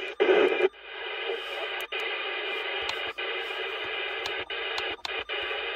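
President McKinley CB radio receiver hissing with band noise through its speaker, with a brief louder burst of signal just after the start. The hiss cuts out for a moment several times as the channel knob is stepped, with faint clicks.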